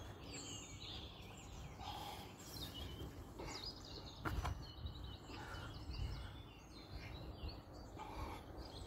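Faint outdoor background noise with birds chirping now and then, and a few soft rustles and pats as hands squeeze damp groundbait into balls in a plastic bucket.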